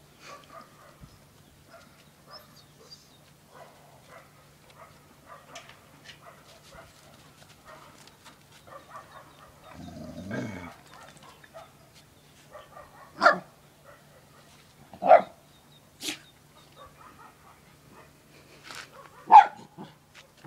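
Dogs barking: a few sharp single barks in the second half, the loudest about two-thirds of the way through and near the end, over fainter scuffling and dog noises.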